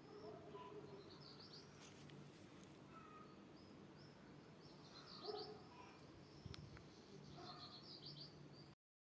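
Faint birdsong: small birds chirping in short bursts of quick high notes, over a low steady background rumble. The sound cuts off suddenly near the end.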